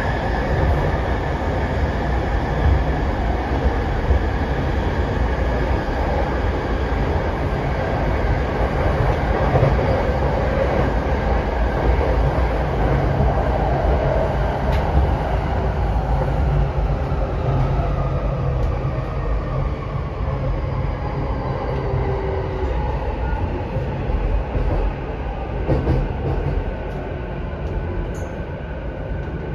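Running noise of an E233 series electric train heard from inside the passenger car: a steady rumble of wheels on rail, with the Mitsubishi IGBT VVVF inverter's faint motor whine. In the second half the whine falls gently in pitch as the train slows.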